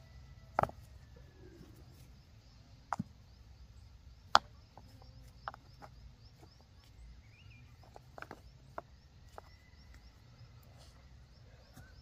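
Scattered sharp knocks and taps, about six in all and irregularly spaced, over a steady low hum and faint, quick high chirping.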